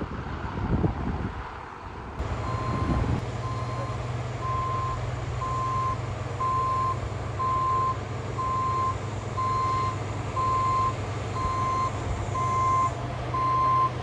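Low wind rumble, then from about two seconds in a heavy vehicle's reversing alarm beeping steadily, about one and a half beeps a second, over a diesel engine running.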